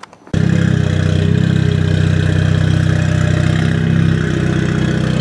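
Volkswagen Golf R's turbocharged 2.0-litre four-cylinder engine and exhaust running at low revs as the car reverses: a steady, low drone, so loud.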